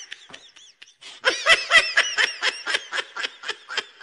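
A person laughing: after a quiet first second, a fast, rhythmic string of short laughs, about six a second.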